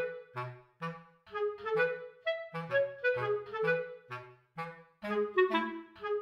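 Background music: a light, bouncy tune of short, detached notes over a plodding bass line, about three melody notes a second.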